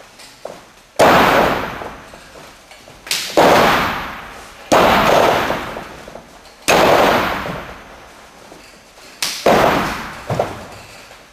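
Loud bangs on a wrestling ring's mat, about five of them one to two and a half seconds apart and a smaller one near the end. Each echoes and dies away in a large hall.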